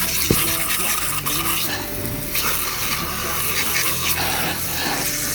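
A brush scrubbing a toy car, a steady rasping rub, with a sharp click about a third of a second in and quiet background music underneath.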